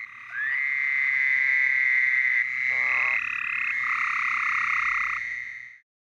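A chorus of frogs calling: several long, steady trills overlapping one another, which fade out shortly before the end.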